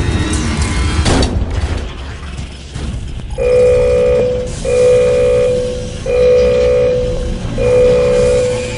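Background music for a promo: a deep rumbling bed with a whoosh about a second in. After about three seconds a pitched synth note, held for about a second, starts repeating roughly every 1.2 seconds.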